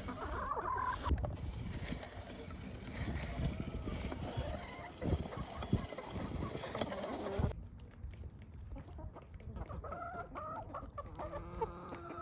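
Domestic chickens clucking, plainest in the last couple of seconds. Before that there is a noisy stretch with low knocks.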